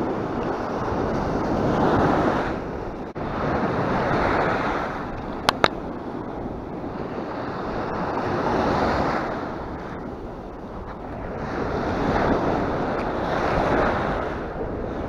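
Sea surf breaking on a sandy beach, swelling and ebbing with each wave, with wind buffeting the microphone. Two sharp clicks come close together a little over five seconds in.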